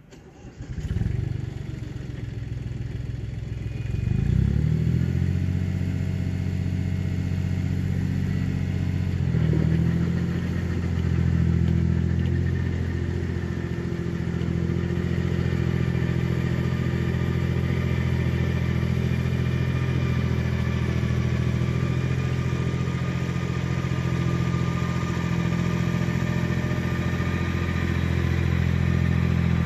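Iseki TL2500 tractor's small diesel engine running. It rises sharply about a second in and again around four seconds in, then settles into a steady run as the tractor drives off.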